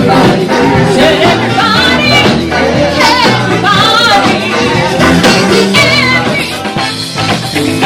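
Live band playing a song, a singer's voice carrying a wavering melody over steady bass and a drum beat.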